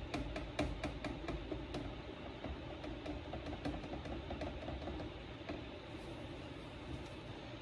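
Motor oil glugging out of a plastic jug into a funnel: a quick, even series of gulps as air bubbles into the jug, fading out after about two seconds.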